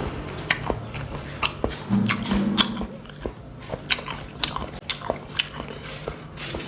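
Close-up eating sounds: a person chewing and biting tilapia, with many short wet clicks and smacks from the mouth and a brief low hum about two seconds in.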